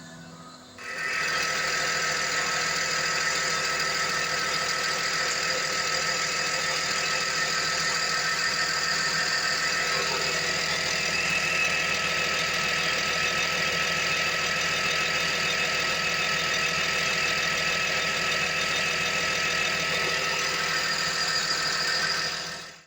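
Diesel engine of a Volvo ECR355E crawler excavator running steadily, coming in abruptly about a second in.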